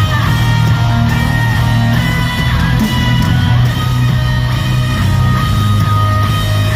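Live rock music from a band, played loud and steady, with electric guitar.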